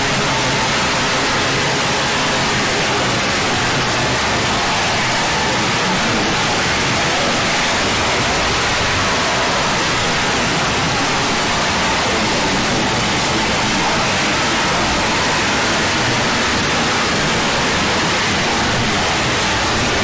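Loud, steady static-like hiss of noise that does not change in pitch or level.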